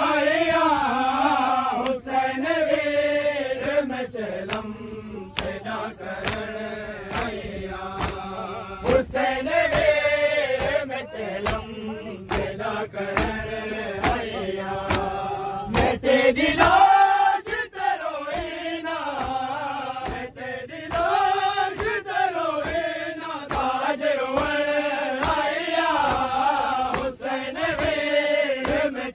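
Mourners' voices chanting a noha together over matam: sharp slaps of hands on bare chests in a steady beat, a little more than one a second.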